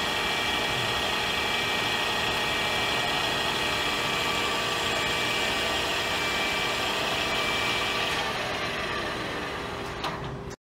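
Metal lathe running under power while turning a Morse taper, with a steady whine over machine noise. The higher whine dies away about eight seconds in, there is a small click near the end, and then the sound cuts off abruptly.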